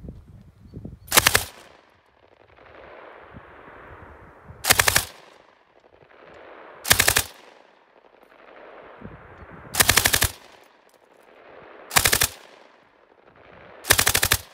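PKM general-purpose machine gun (7.62×54mmR) firing six short bursts of a few rounds each, spaced two to three seconds apart.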